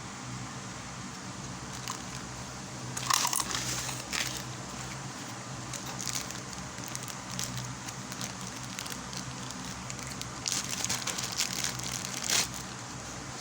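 Packaging being handled and crinkled in two bouts of rustling and crackling, the first about three seconds in and the second near the end, over a steady low hum.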